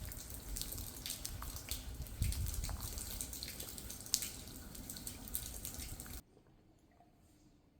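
Steady rushing noise with scattered small clicks, water-like, that cuts off suddenly about six seconds in.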